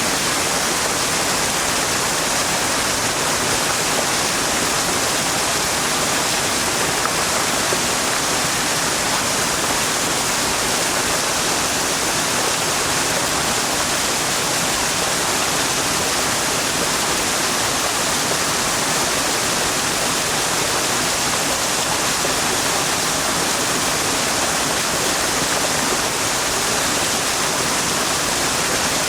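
The Yonako Great Waterfall, tall cliff falls plunging into the gorge, making a steady, unbroken rush of falling water.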